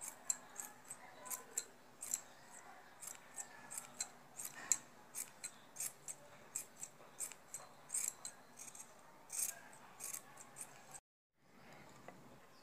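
Scissors snipping through a wool yarn pompom to trim it round: quick crisp snips, about two or three a second, that stop suddenly about eleven seconds in.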